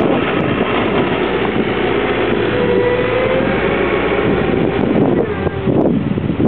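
Caterpillar 906 compact wheel loader's diesel engine running under work, with a whine that rises and falls in pitch about halfway through.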